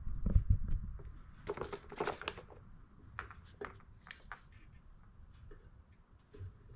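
Scattered light clicks and knocks of small mower engine parts being handled and fitted back together on a workbench, a cluster of them in the first couple of seconds and sparser taps after.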